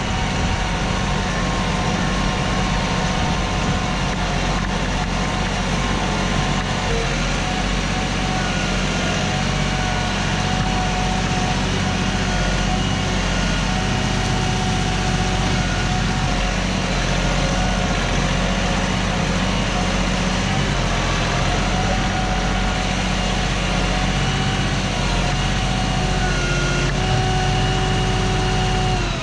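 A machine's engine running steadily, with a whine whose pitch shifts slightly a few times.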